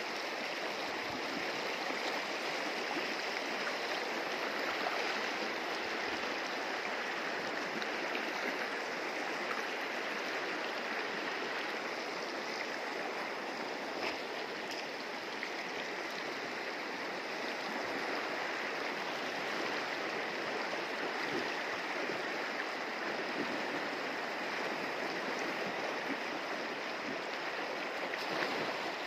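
Shallow, stony river rushing and splashing steadily over rocks and gravel.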